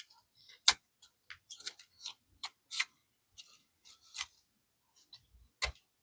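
Irregular light clicks and ticks, about a dozen over the few seconds, from small paper and plastic game pieces being handled and moved on a tabletop.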